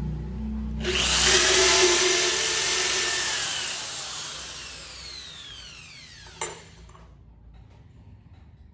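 Electric drill running at speed, then its whine falling in pitch as the motor winds down, ending in a sharp knock about six seconds in.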